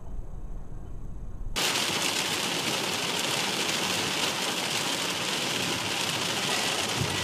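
Vehicle road noise: a low rumble, then after an abrupt cut about one and a half seconds in, a steady, louder hiss with dense crackle.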